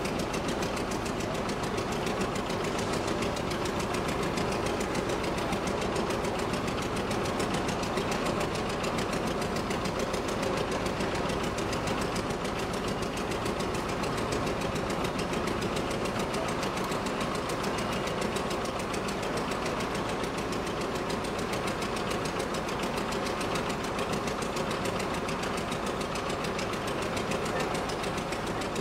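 Forklift engine idling steadily, with a fast even beat that holds unchanged throughout.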